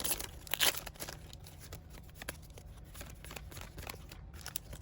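Pokémon card booster pack wrapper crinkling and tearing open by hand, with sharp crackly rustles in the first second, then softer rustling as it is handled.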